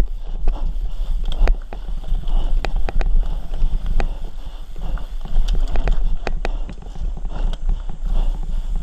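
Mountain bike descending a rough, dry dirt trail at speed: an irregular clatter of sharp knocks and rattles as the bike hits bumps, over a steady low rumble.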